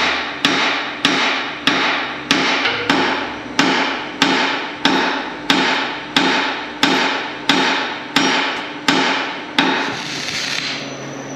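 Hammer striking steel in a steady rhythm, about sixteen ringing blows at roughly one and a half a second, driving the loader's new lower center-pivot bearing home while a bottle jack presses it in. The blows stop shortly before the end.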